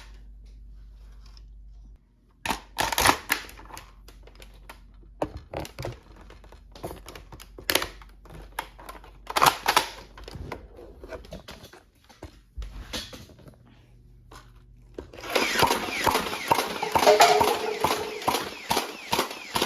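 Plastic clicks and clatter of a Nerf blaster being handled and reloaded, with a dense run of rapid rattling in the last few seconds.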